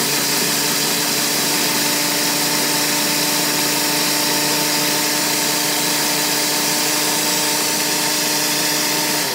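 Countertop blender motor running steadily, puréeing a thick sauce of soaked dried chiles, tomatoes, spices and beef broth.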